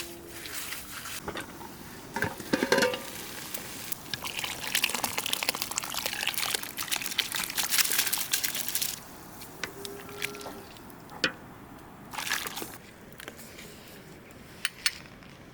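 Liquid being poured or water running for about five seconds, from about four seconds in, among scattered clinks and knocks of handling kitchen things.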